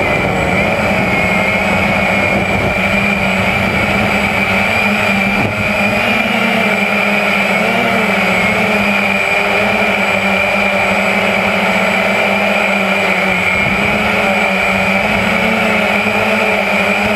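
Walkera QX350 quadcopter's electric motors and propellers whining steadily while it flies, heard up close through its own onboard camera, with a slight waver in pitch.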